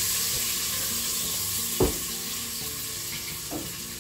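Diced onions sizzling as they fry in an electric pressure cooker's pot while being stirred with a spatula. There is a sharp knock about two seconds in and a lighter one near the end.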